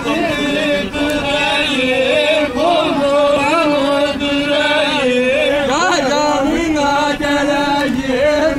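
A man singing a sung (sözlü) Sivas halay tune in long, wavering held notes, with ornamented glides up and down between them.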